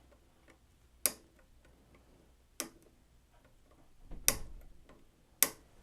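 Four sharp snaps, spaced a second or more apart: side cutters clipping the excess leads of newly soldered electrolytic capacitors on a circuit board.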